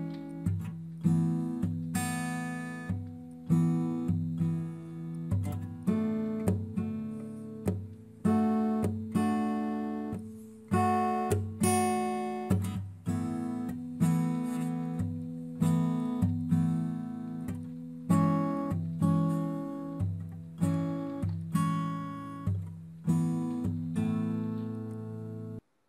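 Background acoustic guitar music: plucked notes and strummed chords, each ringing out and fading. It breaks off briefly at the very end.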